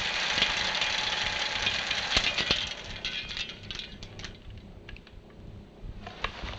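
Film projector rattling after the reel has run out, the loose end of the film flapping: a dense crackling clatter that thins about two and a half seconds in to scattered clicks.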